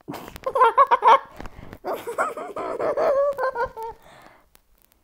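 A high-pitched voice yelling and laughing in bursts, without clear words, dying away about four seconds in.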